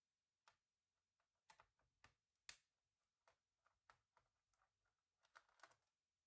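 Faint, irregular light clicks and taps of small laptop parts and tools being handled during disassembly, the sharpest tap about two and a half seconds in.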